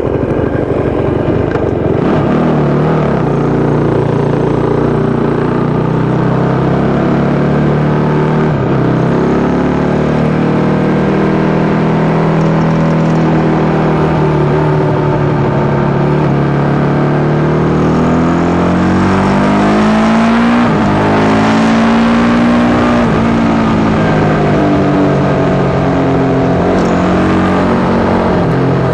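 Yamaha YZ450 single-cylinder four-stroke engine in a supermono race bike running hard on track, its pitch rising and falling repeatedly with a few sudden drops. The bike suffers from what the owner calls a constant misfire that carb, fuel, ignition and coil changes have not cured.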